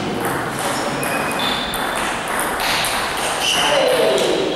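Table tennis rally: the ball clicking off the bats and the table in quick succession. A short falling squeal comes near the end.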